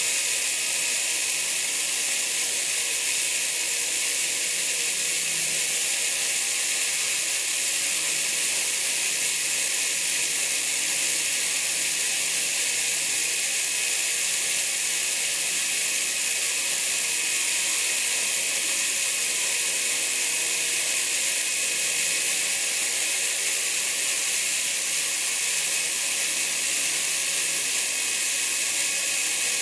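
Home-made belt sander running steadily while polishing a DIY extrusion screw against the abrasive belt: an even grinding hiss with a faint high whine, unchanged throughout.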